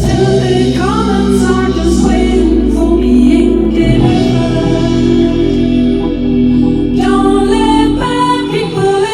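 Live band music with singing, voices holding long notes over a deep bass; the lowest bass drops away near the end.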